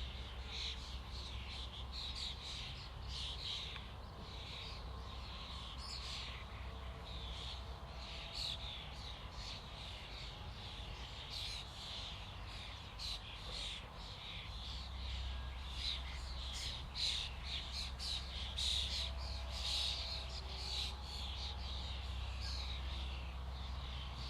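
A flock of starlings chattering: many short whistles and harsh calls overlapping densely, growing busier in the second half, over a steady low rumble.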